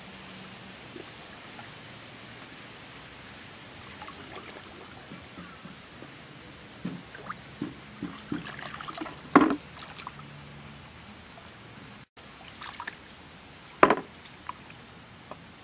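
Shallow lake water sloshing and trickling as hands search through it for shellfish, in scattered small splashes. Two louder splashes stand out, one about halfway through and one near the end.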